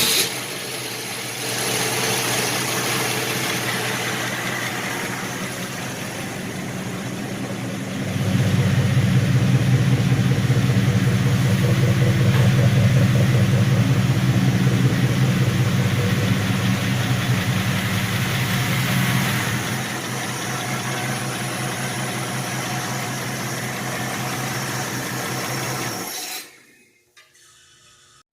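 1946 Studebaker truck engine being test-fired on a jumper wire, running steadily just after catching. It gets louder about eight seconds in, eases back a little later, and shuts off near the end.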